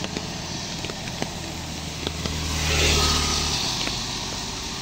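A motorcycle passes close on a wet road. Its engine hum and the hiss of its tyres swell to a peak about three seconds in, then fade. Under it runs the steady hiss of heavy rain, with a few sharp ticks of dripping water.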